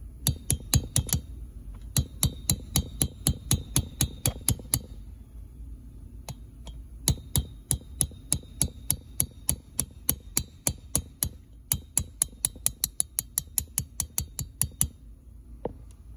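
Light, quick hammer taps on a quarter-inch metal drift, driving the wrist pin out of the piston of an Echo PB-770T two-stroke engine, each tap with a short metallic ring. The taps come in runs of about five a second, with short pauses, the longest about five seconds in, and a last single tap near the end.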